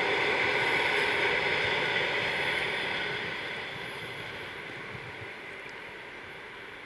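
Passenger train running away down the line, its wheel and rail noise fading steadily into the distance.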